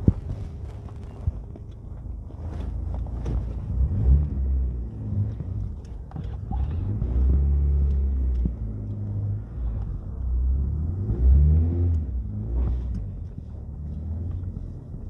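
Nissan Sentra's SR20VE Neo VVL inline-four engine and exhaust while driving, a low rumble whose pitch rises and falls several times as the car speeds up and eases off. The exhaust has a known leak at the downpipe.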